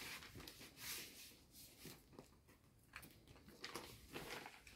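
Near silence with faint, scattered rustling of a paper envelope and a plastic-sleeved card being handled.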